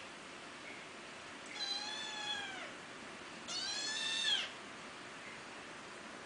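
Young feral kitten meowing twice, two high-pitched cries about two seconds apart, the second louder, the first falling in pitch at its end.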